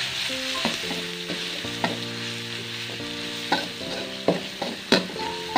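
Ground garlic spice paste sizzling as it is sautéed in a pan, with a metal spoon stirring through it and scraping and tapping the pan bottom in sharp clicks. The paste is being fried until it is cooked.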